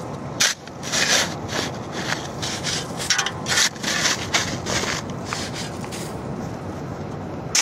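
Irregular rough rubbing and scraping noises, coming in short uneven bursts a few times a second.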